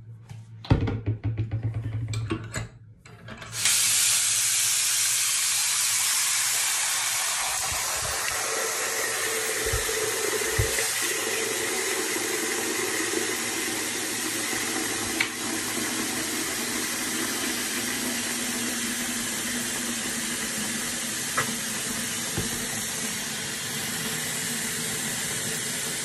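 Bathroom sink tap running at full flow into the basin, the stream splashing into the filling, soapy water with a steady rushing hiss. A few short knocks and handling sounds come first, and the water starts about three and a half seconds in.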